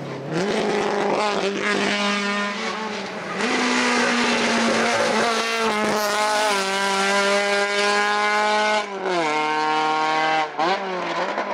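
VW Golf Mk2 race car's engine revving hard under acceleration, its pitch climbing through each gear and dropping at the gear changes.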